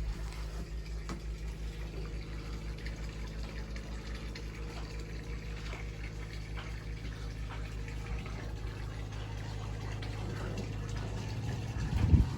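A steady low mechanical hum with a fast, even pulse, like a motor or pump running. It is joined by a louder, rougher burst of noise near the end.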